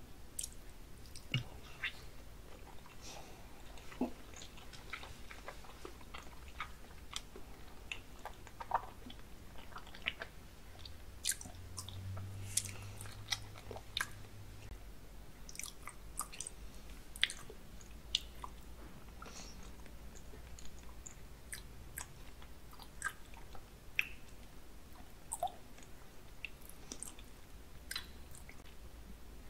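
A person chewing raw salmon sashimi close to the microphone: soft, wet mouth smacks and clicks at irregular intervals.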